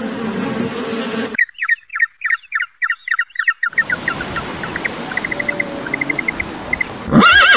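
A buzzing insect drone stops abruptly about a second in. It gives way to a small bird's rapid, repeated chirps and trills. Near the end a loud horse whinny begins.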